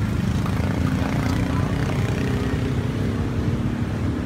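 A motor engine running steadily, a low drone with a faint hum over it, amid outdoor street noise.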